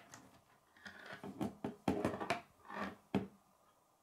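Plastic K'nex rods and connectors of a built model clattering and knocking against each other and a wooden tabletop as the model is picked up and set upright. A run of clicks and knocks starts about a second in, is loudest around two seconds, and ends with one sharp knock a little after three seconds.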